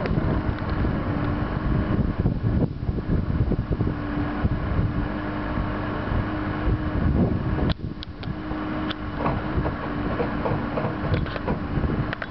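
JCB 3CX backhoe loader's diesel engine running steadily under load as the backhoe arm digs. A steady hum fades in and out, and a few sharp knocks come in the second half.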